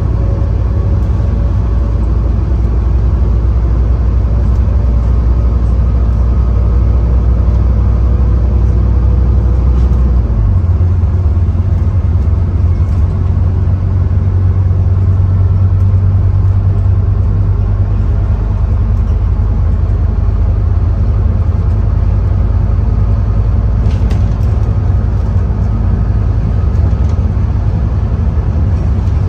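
Scania N230UD OmniCity bus's five-cylinder diesel engine pulling under load, heard from inside the saloon. The low engine note steps up in pitch about ten seconds in, as with a gear change, then holds steady.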